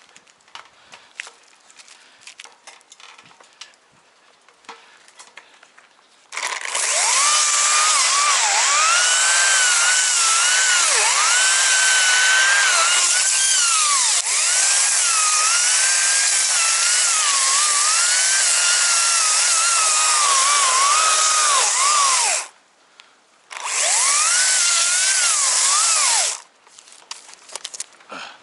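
Chainsaw cutting through thick wood: it comes in loud about six seconds in, its engine pitch sagging and rising again and again as the chain bites under load. It pauses briefly and cuts again for a few seconds near the end. Before it starts there are only faint clicks and rustling.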